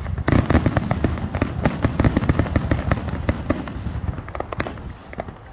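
Fireworks display going off in a fast string of sharp cracks and bangs, thinning out near the end.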